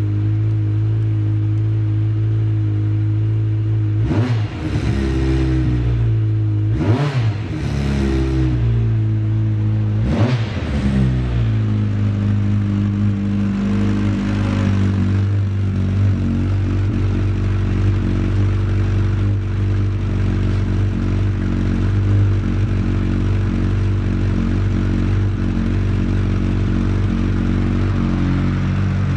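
Yamaha FJ1200's air-cooled inline-four engine idling steadily, blipped three times a few seconds in, each rev rising and falling back, then settling into a stable idle.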